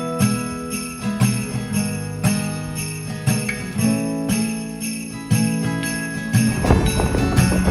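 Background music led by ringing bell-like notes, struck anew every half second to a second, with a brief noisy swell near the end.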